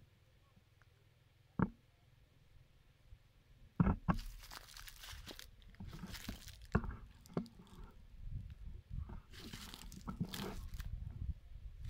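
Irregular crunching and rustling of dry leaves and brush, as of someone walking through leaf litter among bushes. It starts about four seconds in, after a single sharp click, and grows busier near the end.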